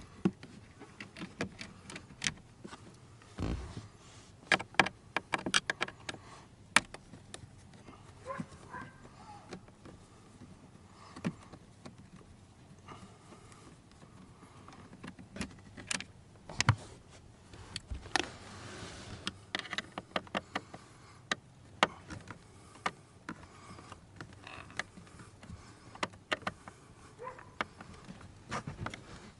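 Screwdriver and tools clicking and knocking against plastic dashboard trim as T20 screws are worked out, in scattered irregular taps, with a short scraping rustle about two-thirds of the way through.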